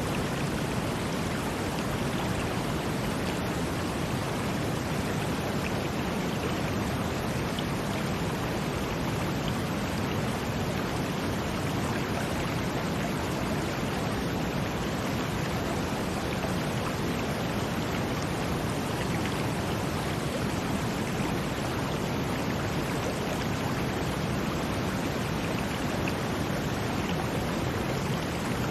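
Steady brown noise blended with the rush of running water, an even, unbroken sound heaviest in the low range, with no swells or breaks.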